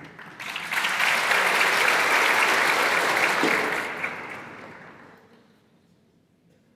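Audience applauding: clapping swells in about half a second in, holds steady for about three seconds, then dies away.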